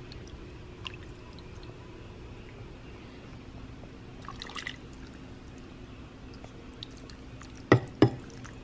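A ladle scooping chunky vegetable soup from a pot and pouring it into a bowl, with a short run of wet splashes and drips about four seconds in. Near the end the ladle knocks sharply twice against the dishes, over a steady low hum.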